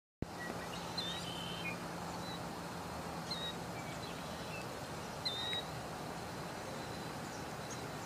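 Steady outdoor background noise with a few short, high bird chirps scattered through it, about one, three and five seconds in.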